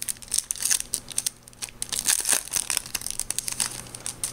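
A Yu-Gi-Oh booster pack's wrapper being torn open and crinkled by hand: a run of irregular crackles and rips, with a short lull partway through.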